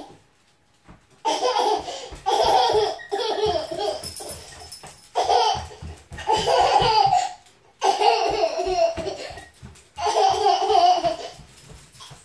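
A toddler laughing hard in about four bouts of giggles and belly laughs, each a second or two long with short pauses between.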